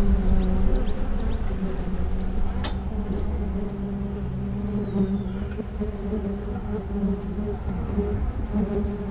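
Honeybees buzzing in a steady, dense hum around their hive boxes. In the first few seconds, a low rumble fades out and a run of short, high rising chirps ends in one long high whistle that falls away.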